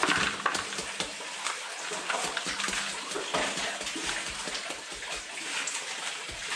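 Water sloshing and splashing in a gold pan as a sample of crushed quartz-vein material is swirled and washed, in irregular strokes.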